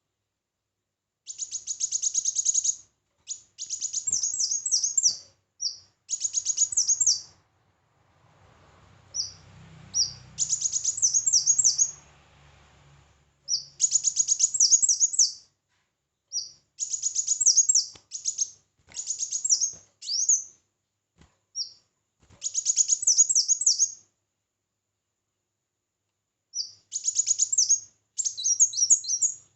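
A small songbird singing repeated short phrases of rapid, very high-pitched twittering notes, with brief pauses between phrases. A faint low rumble sits underneath for a few seconds in the middle.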